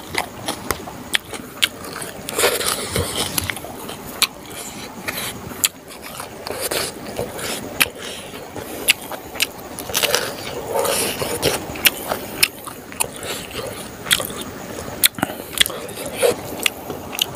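Close-up eating sounds: a man chewing smoked pork and rice, with many irregular wet mouth clicks and smacks, and his fingers scraping and squeezing rice on a banana leaf.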